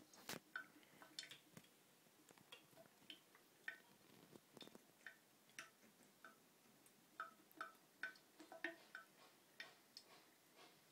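Faint, irregular small ticks and plinks, about two or three a second, from water drops and a cat's paw dabbing at wet water in a porcelain washbasin drain.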